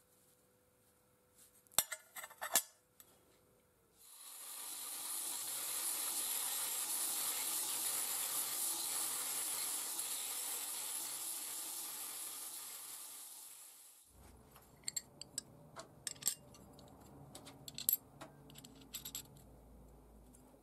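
A few metal parts clink together, then a belt grinder grinds a small steel disc for about ten seconds, a steady hiss that dies away gradually near the end. After it, light metallic clicks and knocks as the steel parts are handled.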